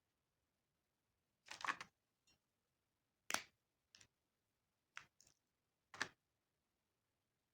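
Brief crinkles and sharp clicks of candy packaging being handled and opened: a short cluster of crinkling about a second and a half in, then single clicks about every second.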